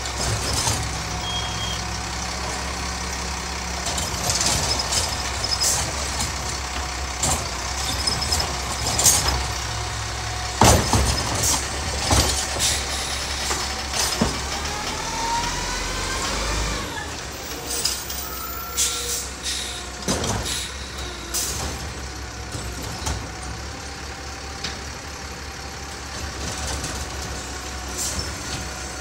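Diesel garbage truck running, with repeated sharp clanks and bangs through the work. Its pitch rises for a couple of seconds around the middle, then drops away.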